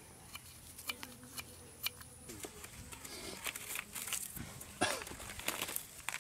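Kitchen knife chopping through carrot onto a wooden board, sharp taps about twice a second for the first two seconds, followed by a jumble of rustling, clatter and faint calls.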